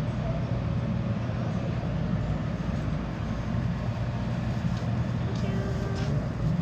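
Steady low mechanical hum over a background noise haze, with faint voices.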